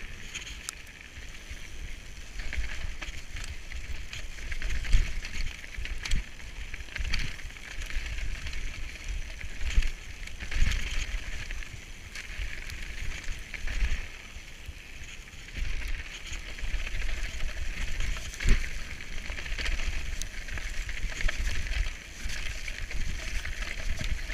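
Mountain bike riding fast down a dirt trail, heard from a camera on the rider: wind rumbling on the microphone over the hiss of tyres on loose dirt and gravel. Sharp knocks and rattles from the bike hitting bumps come every few seconds.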